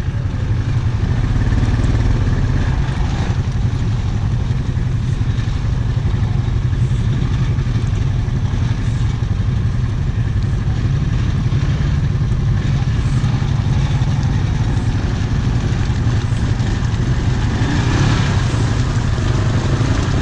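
ATV engine running steadily under throttle as the quad rides along a muddy trail.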